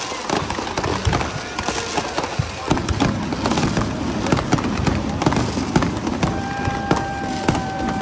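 Fireworks crackling and popping in rapid, irregular succession. A steady tone comes in about six seconds in and holds.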